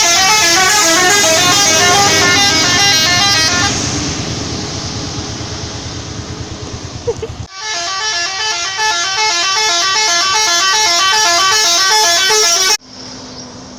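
Indonesian 'telolet' multi-tone musical bus horn playing its fast repeating tune of stepping notes. It stops about four seconds in, leaving a fading rumble, plays again from about halfway, and cuts off suddenly near the end.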